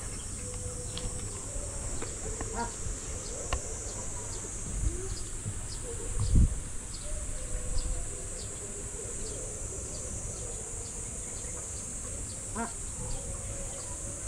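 A steady high-pitched insect drone, with a run of short high ticks repeating through it and a brief low thump about six seconds in.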